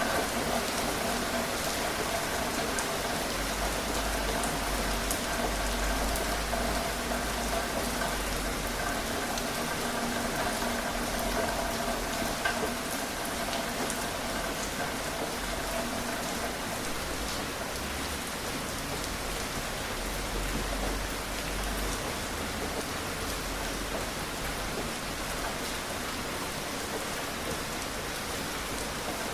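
Steady rain falling, an even hiss with scattered drops ticking. A faint steady hum runs under it and fades out about halfway through.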